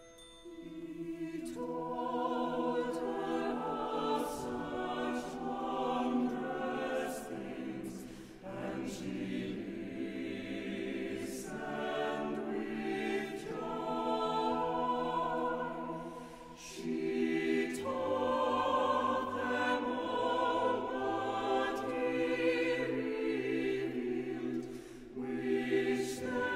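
Chamber choir singing slow, sustained chords with chamber orchestra accompaniment, a low bass line entering about two-thirds of the way through, and light metallic percussion strikes now and then.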